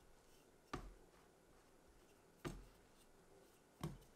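Wooden rolling pin being rolled back and forth over layered puff pastry on a stone worktop, with three short knocks about a second and a half apart, one at each stroke, and near silence between them.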